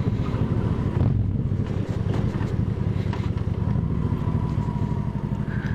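Honda Shadow 750's V-twin engine running steadily as the motorcycle is ridden, heard from inside the rider's helmet.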